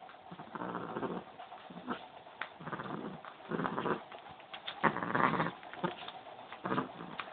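Domestic cat growling angrily in short bursts, about one a second, with a few clicks of handling close to the microphone.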